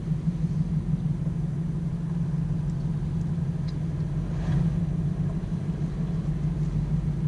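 Van driving along a road, heard from inside the cab: the engine and tyres make a steady low drone.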